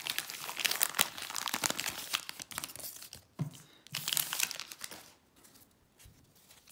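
Baseball card pack wrapper being torn open and crinkled by hand, dense crackling for about three seconds, then a few shorter rustles before it quiets near the end.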